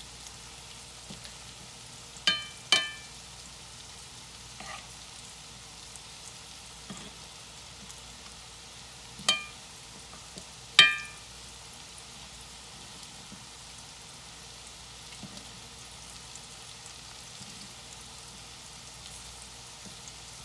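Cornmeal-coated summer squash slices frying in hot oil in a cast iron skillet, a steady sizzle. A metal slotted spoon clinks against the skillet with a short ring four times, in two pairs a couple of seconds in and again around ten seconds in.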